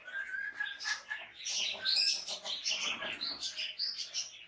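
Birds chirping busily: many short, high calls overlapping, with one held whistled note in the first second.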